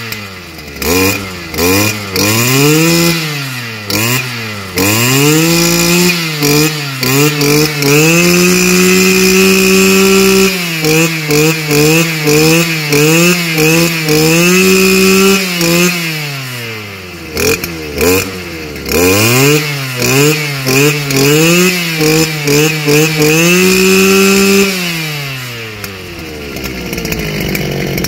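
Stihl FS250 brush cutter's two-stroke engine revved up and down over and over under the throttle: quick blips, stretches held at high revs, then easing back to idle near the end.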